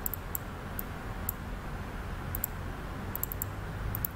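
About a dozen light clicks of a computer mouse, scattered and some in quick runs, over a faint steady low hum.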